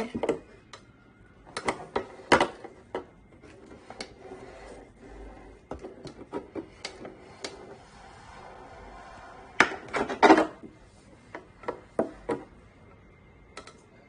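Scattered sharp clicks and crackles of a thin plastic bottle being handled and pressed while a soldering iron melts holes through it, with the loudest cluster about ten seconds in.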